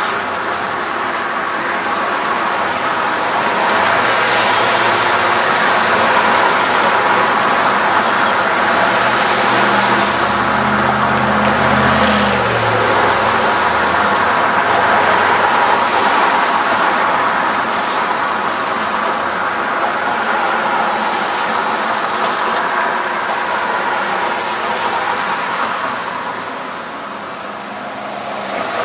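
Steady city street traffic noise, with a vehicle engine passing for a few seconds about ten seconds in; the noise eases slightly near the end.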